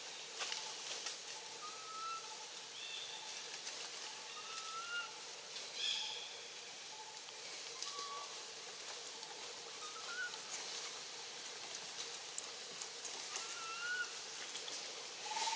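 Forest ambience with short rising chirps about every two to three seconds, over a steady hiss and scattered light clicks and rustles.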